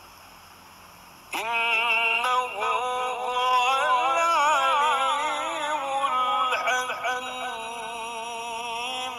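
A man's voice in melodic Quran recitation: after a short pause, one long held phrase with rapid wavering ornaments that begins about a second in and fades near the end.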